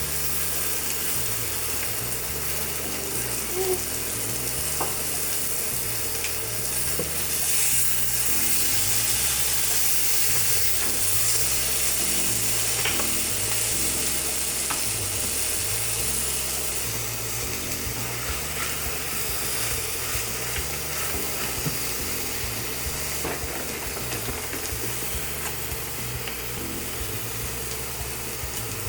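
Food sizzling and frying in hot pans, with a few light utensil taps. The sizzle grows louder about eight seconds in and stays up for roughly nine seconds before easing back.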